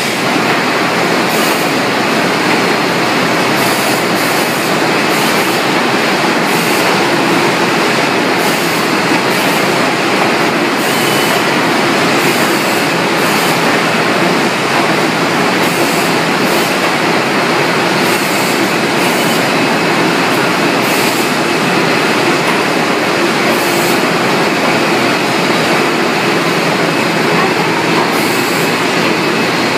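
Poultry processing plant machinery running: the overhead shackle conveyor line and its equipment make a steady, loud mechanical din.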